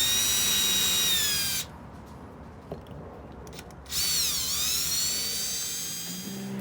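Power drill working on a Jeep door handle insert in two runs with a pause between them. Each run is a high whine; the first winds down in pitch as it stops, and the second dips in pitch and comes back up.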